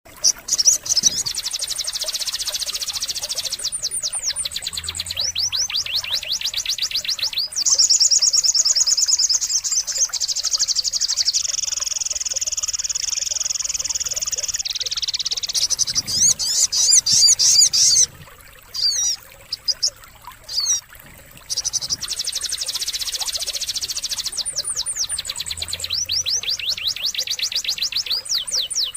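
Sogon birdsong played as a masteran recording: fast high trills and long, even, rattling song phrases. From about 18 to 21 seconds the song breaks into a few separate short calls, then the trills resume.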